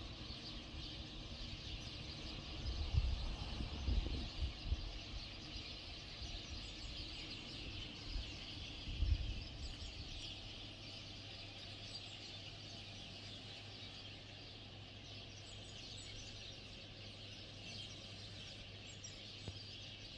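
Outdoor dawn ambience with many small birds chirping faintly. A few dull low thumps come in the first half, and a faint low hum runs through the second half.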